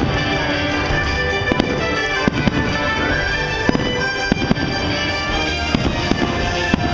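Fireworks bursting in many sharp, irregular bangs, some close together, with music playing throughout.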